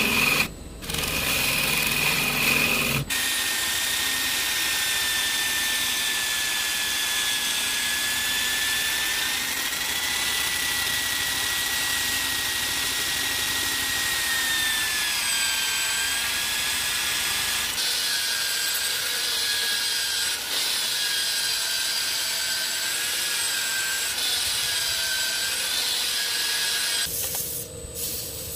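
Drill-driven sanding disc rubbing against a spinning juniper vase on a wood lathe, with the drill motor giving a steady whine that wavers a little in pitch. For the first few seconds, before that, a gouge is cutting into the turning wood, and near the end there is quieter hand sanding with sandpaper.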